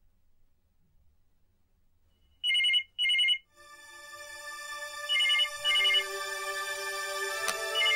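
After a quiet start, an electronic telephone rings in pairs of short trills, the first pair about two and a half seconds in, repeating roughly every three seconds. Background music swells in under the rings.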